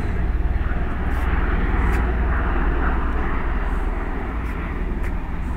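Two Bell Boeing V-22 Osprey tiltrotor aircraft flying past, their twin proprotors giving a steady, rapid low beat under a rushing engine noise.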